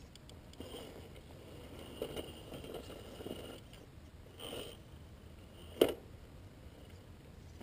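Gmade Sawback RC scale crawler's brushed electric motor and gearbox whining in short stretches on and off the throttle as it creeps over rocks, with tyres crunching and scraping. A few sharp knocks come through, the loudest nearly six seconds in.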